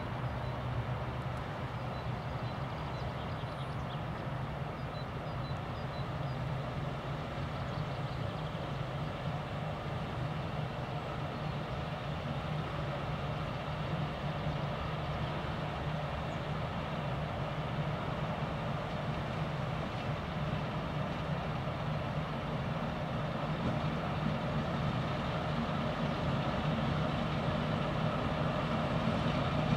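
ChME3 shunting diesel locomotive moving slowly, its six-cylinder diesel engine running with a steady low drone that grows gradually louder as it approaches.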